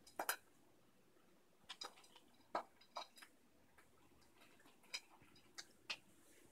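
Egyptian Mau cats crunching dry kibble: a scatter of short, sharp, irregular clicks with quiet gaps between them.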